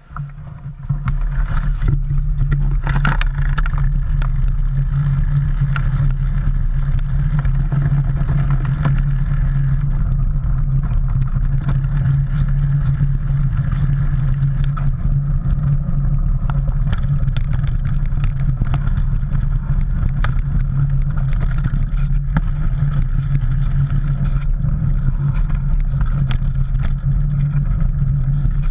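A mountain bike riding over a dirt and leaf-litter trail, picked up by a handlebar-mounted camera: a steady, loud low rumble from the knobby tyres and wind on the microphone, with frequent small clicks and rattles from the bike over the rough ground. The rumble builds up within the first second as the ride gets under way.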